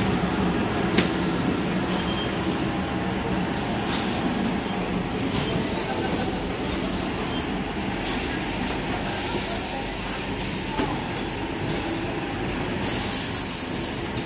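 Automatic gift-box film wrapping and shrink packing line running: a steady machine hum with boxes rolling along the roller conveyor and a few sharp clicks. There are two short hissing bursts in the second half.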